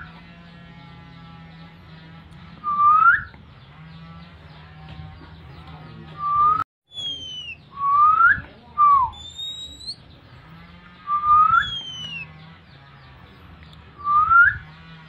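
Whistled calling notes used to call an oriental magpie-robin in breeding condition: short rising whistles repeated every few seconds, some followed by a falling note, over a faint steady hum.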